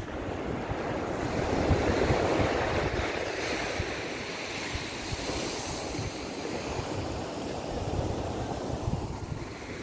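Small waves of surf washing up on a sandy beach, with wind buffeting the microphone. The wash swells about two seconds in.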